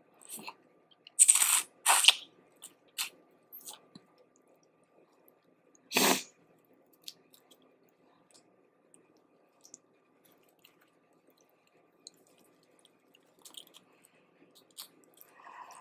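Close-miked eating of boiled crawfish: crunching and chewing, with loud short bursts a little after a second in, at two seconds and again around six seconds, and small clicks and smacks in between.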